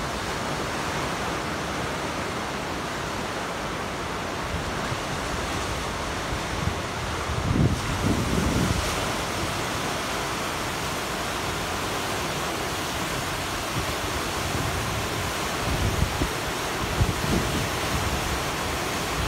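Arkansas River in major flood: a steady rush of fast brown water churning in boils and standing waves. Wind buffets the microphone in low gusts about halfway through and again near the end.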